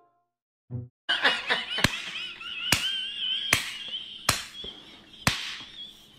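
Five sharp clacks, about one a second, as a cat paws at the ceramic food bowls on a plastic tray. A high wavering whistle-like tone runs behind them.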